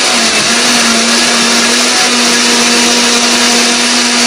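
Countertop blender running at speed with a steady motor hum, blending raw eggs and red chillies into a liquid batter.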